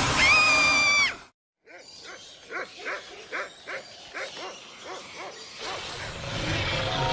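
Cartoon soundtrack: a loud, held, high shriek-like tone cuts off sharply about a second in. After a moment of silence comes a quick run of about eight short pitched yelps, like a cartoon character hiccuping, then noise swells again near the end.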